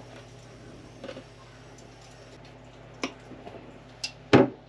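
Hand pliers clicking and snipping on a small metal ring terminal, cutting its ring open to make a U-shaped terminal: a few sharp, separate clicks, then two louder knocks near the end.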